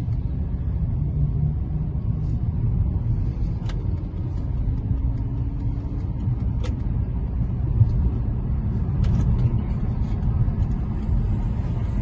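Volkswagen Jetta being driven, heard from the cabin as a steady low road-and-engine rumble with a few faint clicks. No creak is heard from the air suspension, which has just had new bearings fitted at its top mounts to cure it.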